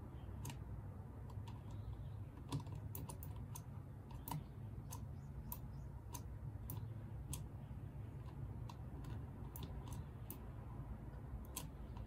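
Faint, irregular small clicks and taps as multimeter probe tips are pressed against a Dyson vacuum battery pack's circuit board and the pack is handled, over a low steady hum.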